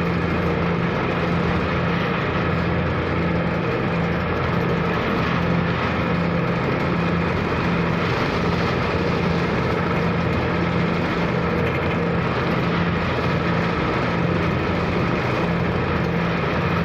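Ferry's diesel engine running steadily under way, a constant drone with a low hum that pulses at an even rate.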